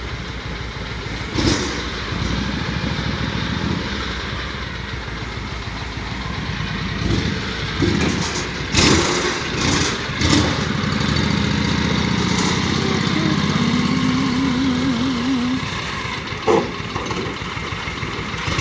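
An engine running steadily at low revs while the Bren gun carrier hull is moved, with several loud metal clunks about a second and a half in and again around the middle, and a short wavering squeal a little later.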